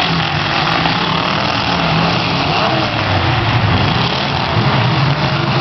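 Several demolition derby cars' engines running and revving at once, their pitches wavering up and down over a steady wash of noise.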